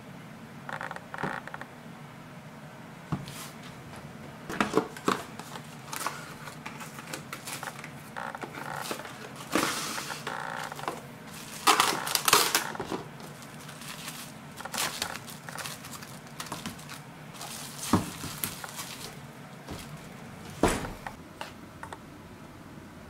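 Kitchen handling sounds: a stainless steel mixing bowl set and moved on the counter with scattered light knocks and clinks, and plastic cling wrap pulled from its box and crinkled over the bowl about halfway through.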